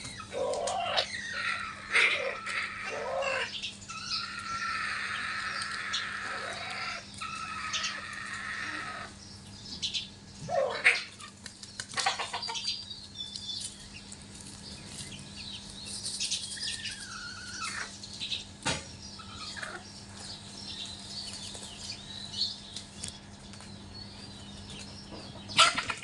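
Native chicks cheeping and a hen calling as the brood moves about on soil, with scattered short rustles and knocks. A steady low hum runs underneath.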